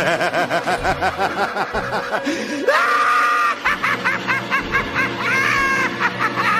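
A cat in a pet carrier giving a run of short rising-and-falling cries, about four a second. About two and a half seconds in, a dog in a crate takes over with high-pitched, pulsing vocal calls.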